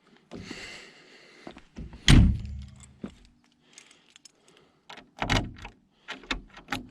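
A loud thunk about two seconds in and a second heavy thump a little after five seconds, with lighter clicks and knocks between and near the end.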